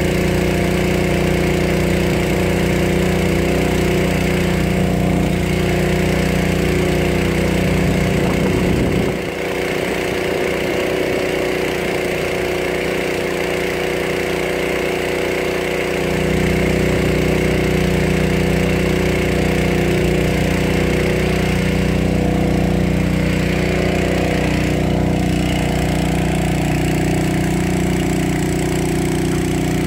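An engine running steadily at a constant pitch. Its deepest hum drops away from about nine to about sixteen seconds in, then returns.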